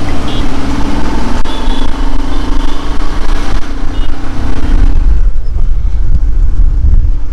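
Motorcycle engine running steadily under heavy wind rumble on the microphone while riding pillion. The engine tone drops away about five seconds in, leaving mostly wind rumble.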